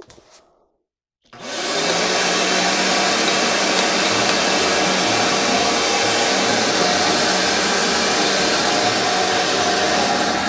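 Shop vacuum switched on about a second in, then running steadily while its hose picks up shavings and sanding dust from a workbench.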